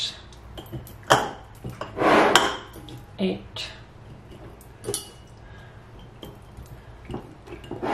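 Glass canning jars and a stainless steel bowl clinking and knocking now and then as roasted green pepper pieces are packed into the jars by hand, with a longer scraping rustle about two seconds in.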